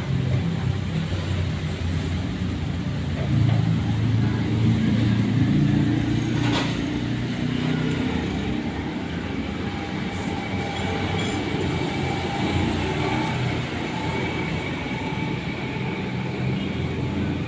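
Steady low rumble of street traffic and engines, swelling as something passes between about 3 and 6 seconds in, with a single sharp click about six and a half seconds in.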